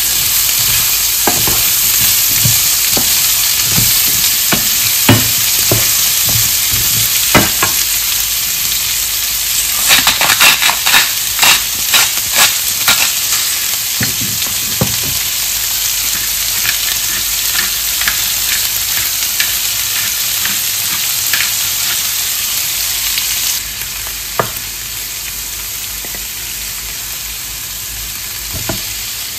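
Food sizzling as it fries in a pan, with a utensil stirring and knocking against the pan now and then, and a quick run of clicks about ten seconds in. The sizzle drops to a lower level about three-quarters of the way through.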